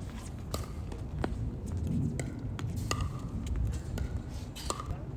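Tennis ball being struck with rackets and bouncing on a hard court during a rally: a handful of sharp, separate pops spread over a few seconds. There are a few short squeaks in between, over a steady low rumble.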